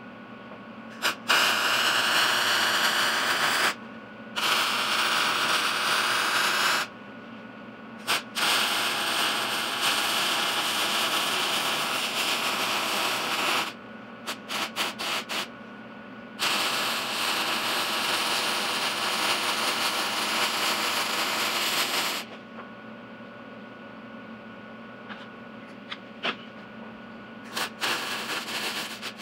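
Wire-feed welder's arc crackling and hissing in four long runs of a few seconds each, with a few short tack blips between them: welding a steel cap over the opening in an old hot water tank.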